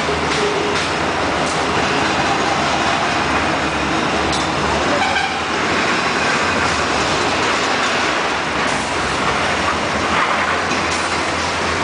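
Continuous loud mechanical noise with a rattling edge, from machinery running.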